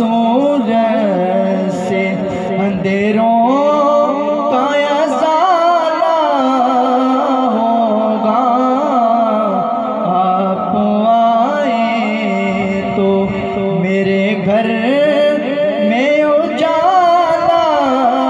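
A man's solo voice singing a naat, drawn out in long, ornamented melodic runs with the pitch sliding and wavering, amplified through a microphone and PA system.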